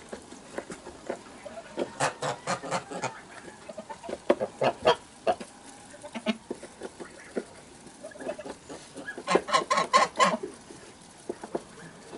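Domestic white geese calling in short runs of quick honks, the loudest run coming about three-quarters of the way through.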